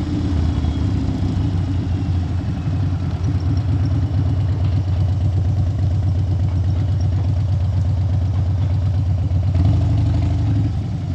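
Motorcycle engine running at low speed and then idling, with a short rise in revs near the end.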